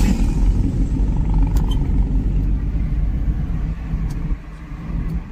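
Road noise inside a moving car: a steady low rumble of engine and tyres on the highway.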